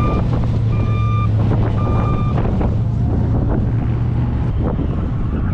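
A vehicle's reversing alarm beeping at one steady pitch, about once a second, stopping after the third beep about two seconds in, over a steady low engine drone and wind noise on the microphone.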